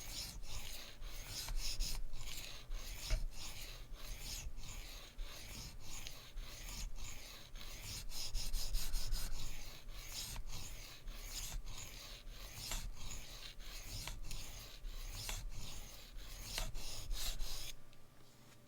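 Steel knife blade scraping on a diamond sharpening plate in quick freehand strokes, about two a second, stopping shortly before the end. The strokes work the second side of an S35VN edge to raise a burr.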